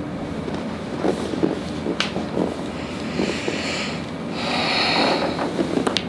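Body and clothing shifting on a padded chiropractic table as a patient is set up lying on her side, with a sharp click about two seconds in, a breathy hiss for about a second, and a sharp crack near the end from a side-lying low-back chiropractic adjustment.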